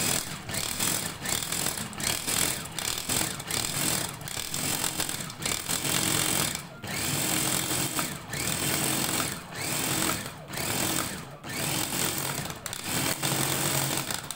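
Electric mini chopper (hachoir) with a stainless steel bowl chopping fresh parsley, its motor whirring in pulses and cutting out briefly every second or so as it is pressed and released.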